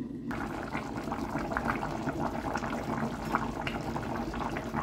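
Pot of stew boiling on a hob: a dense, steady stream of small bubbling pops and blips that starts suddenly just after the beginning.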